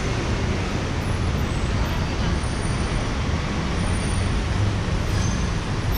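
Steady traffic noise of a busy city road, with vehicles running past and a low rumble.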